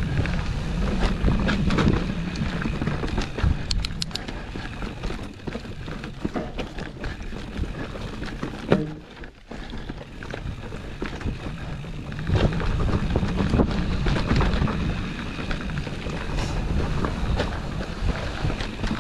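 Wind buffeting the microphone and tyre noise from a bike ridden over a rough trail, with frequent rattles and knocks from the bike over bumps and a brief lull about nine seconds in.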